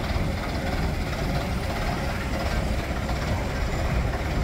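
Vintage London bus running: a steady, even engine and road rumble, with no single knock or change standing out.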